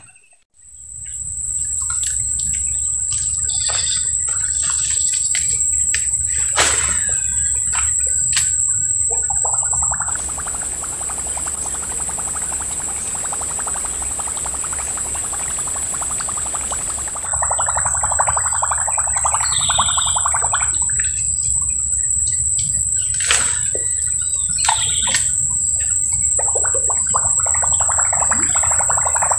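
Outdoor swamp ambience: a steady high-pitched insect drone with a few short bird chirps, over a constant low rumble and scattered clicks.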